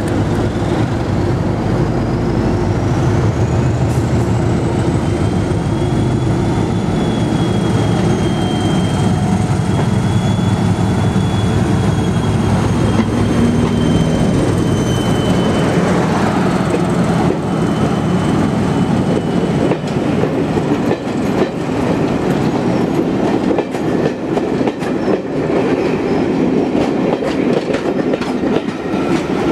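Diesel locomotive running with a train, its engine giving a steady heavy rumble. A high thin whine climbs over the first few seconds and fades out about halfway through. In the second half the wheels click over the rail joints.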